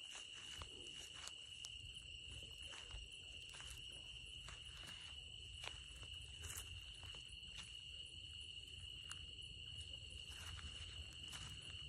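Night insects, crickets among them, keep up a steady, high-pitched, faint chorus, with scattered faint clicks over it.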